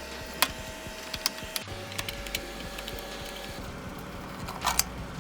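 Scattered light clicks and taps from hand tools and plastic headlight parts being handled, with a short cluster of louder clicks near the end, over a steady low hum.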